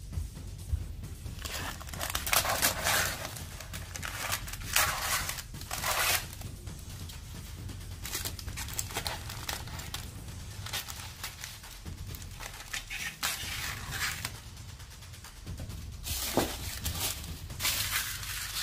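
Scissors cutting baking parchment, the paper crinkling and rustling in about six short bouts, over background music.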